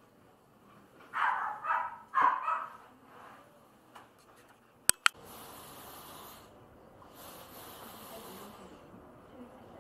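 A puppy barking in two short bursts, then two sharp clicks about five seconds in, followed by a faint, intermittent hiss.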